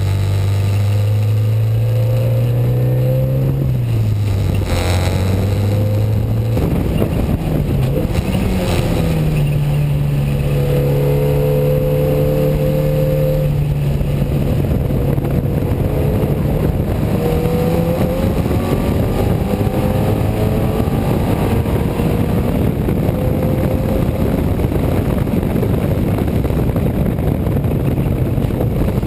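Race car engine of a Unipower GT heard from inside the cockpit, its note rising under acceleration, dropping about four seconds in, then rising and holding steady, over constant loud road and wind noise.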